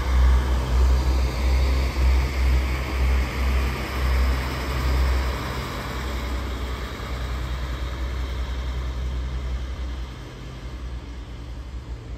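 A DB Regio Alstom Coradia LINT diesel multiple unit passing close by: a low engine drone and the noise of wheels on rails. It fades as the train pulls away, with a further drop about ten seconds in.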